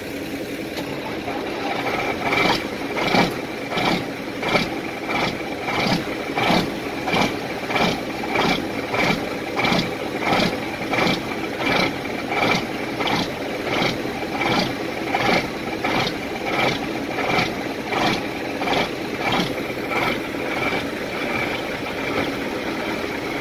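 1971 Mack U600 truck's diesel engine running at idle through its vertical exhaust stack. About two seconds in, the sound takes on a loud, regular beat of about one and a half pulses a second.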